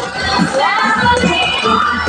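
Music playing over the noise of a crowd's voices.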